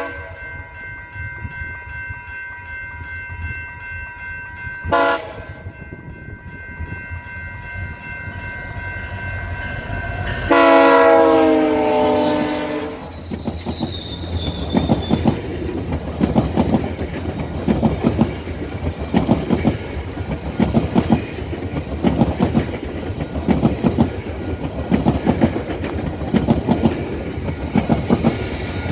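GO Transit commuter train sounding a long, steady horn chord as a warning for a level crossing; about ten seconds in the horn turns loud and slides down in pitch as it passes, then stops a few seconds later. A brief sharp knock sounds about five seconds in, and after the horn the wheels clatter rhythmically over the rails as the coaches go by.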